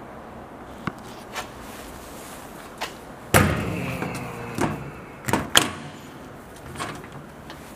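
Stainless-steel cabinet door on a machine swung shut with a loud, ringing metal bang about three seconds in. Sharper clanks of the door and its latch handle follow around five and a half seconds, with a few lighter clicks before and after.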